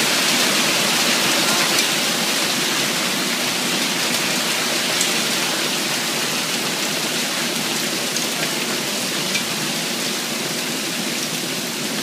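Hail falling heavily on a garden: a dense, steady hiss of hailstones pelting the lawn, with scattered sharper ticks of individual stones.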